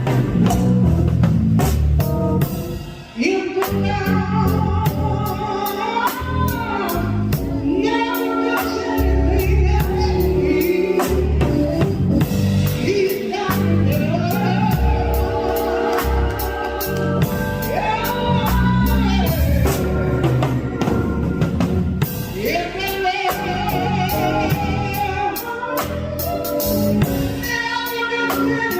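Gospel song: singing over a band with strong bass and a steady beat.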